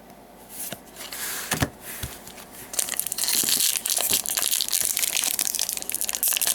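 A few light clicks and rustles, then from about three seconds in a dense, continuous crinkling as a foil Magic: The Gathering booster pack wrapper is torn open and handled.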